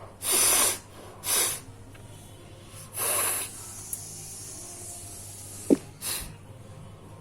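A person blowing their nose hard, four forceful blasts of air through the nose, the first the longest and loudest, with a brief sharp sound just before the last.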